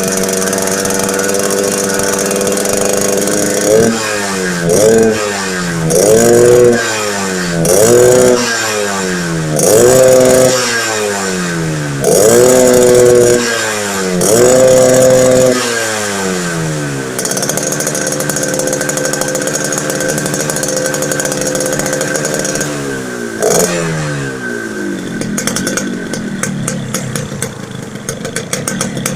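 2008 Yamaha RX-King's 135 cc two-stroke single-cylinder engine idling, revved in about seven short blips of the throttle, then settling back to idle with one more small blip. Near the end the idle turns rough and ticking. This is the 'ngorok' (snoring) noise the owner is showing.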